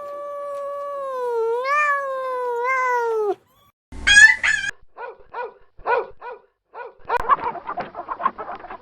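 A string of different animal calls in quick succession: one long, wavering, drawn-out call that drops in pitch as it ends, then a short loud cry, a run of about six short yelping calls, and a denser jumble of chattering calls near the end.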